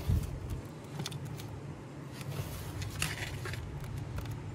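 A hand scooping and pressing potting soil mixed with perlite into small plastic nursery pots: a soft thump at the start, then faint scratchy crunches now and then. A steady low hum runs underneath.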